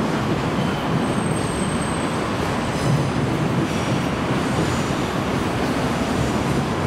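Freight train passing on an elevated railway viaduct: a steady, loud rolling noise of wheels on rails, with faint high-pitched squeals now and then in the first few seconds.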